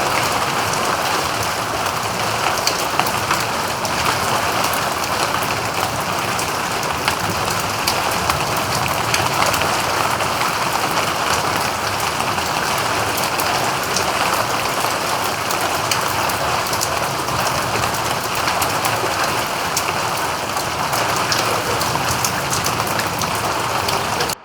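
Steady rain falling, a dense hiss with many individual drops ticking through it, ending abruptly right at the end.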